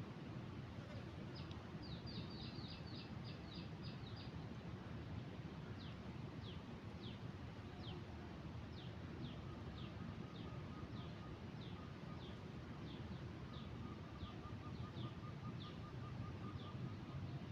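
A bird calling in short, high, downward-slurred notes. It opens with a quick run of them, then repeats single notes about two a second, over a steady low outdoor background noise. A fainter thin trill joins in near the middle.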